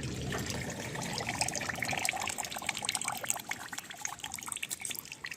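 Liquid trickling and dripping, with many small irregular ticks.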